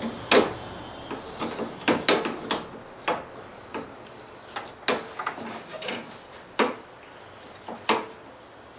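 A hand tool knocking and scraping against a 4-inch duct fitting, about a dozen sharp knocks at irregular intervals, as the fitting's ridges are pressed down to seat it and make a tight seal.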